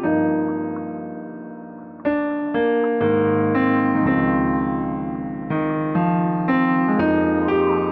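Background piano music: chords struck one after another, each ringing and fading, with a long fade in the first two seconds and quicker changes after that.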